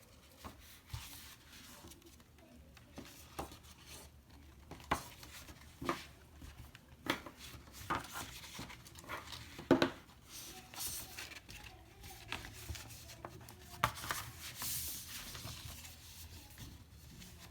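Sheet of paper being handled and folded: scattered short crinkles, taps and rustles, the loudest a sharp crackle about ten seconds in.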